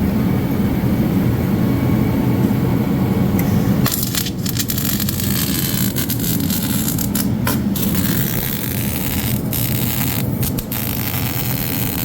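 Harbor Freight wire-feed welder arc crackling and sputtering as a subframe connector is welded to the car's floor, stopping briefly several times between beads. For the first four seconds a low rumble comes before the crackle starts.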